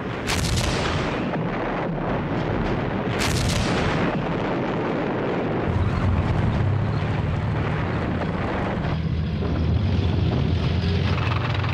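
Two heavy artillery gun blasts about three seconds apart, each trailing off in a long rumble. From about six seconds in, a tank engine rumbles steadily.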